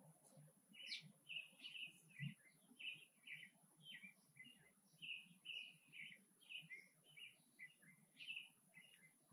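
A bird chirping faintly: a long run of short, repeated chirps, about two or three a second, over a steady high hiss.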